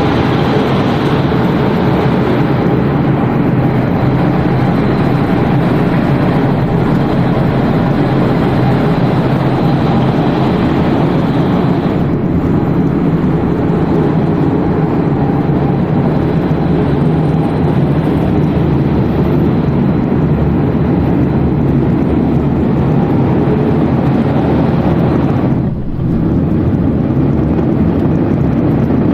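Steady machinery noise from a running cereal flakes processing line: a loud, constant hum and rumble of motors and conveyors, with a brief dip in level near the end.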